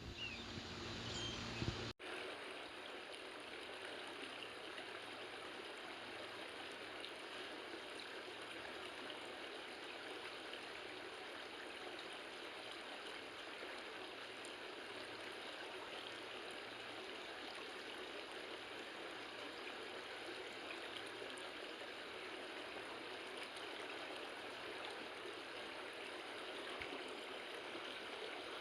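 River water flowing through the gorge: a steady, even rush of stream water, with a brief break in the sound about two seconds in.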